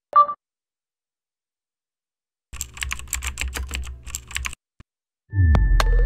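Electronic logo-sting sound design: a short beep, then about two seconds of rapid clicking over a low hum, then a deep bass hit with sharp clicks and bright held tones near the end.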